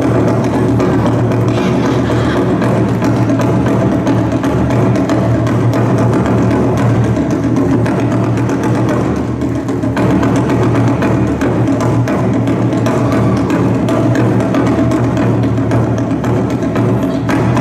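Yosakoi dance music played loud over a hall's sound system, driven by drums with sharp wooden clacks.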